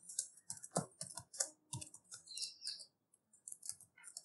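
Computer keyboard keys clicking in quick, irregular runs as code is typed, with a short pause about three seconds in.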